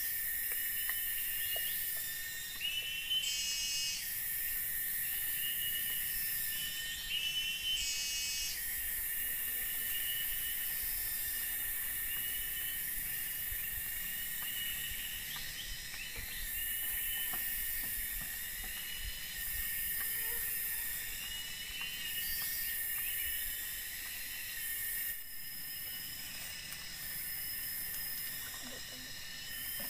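Tropical forest insects: a steady high drone with a chirping call that repeats every second or two, louder over the first several seconds.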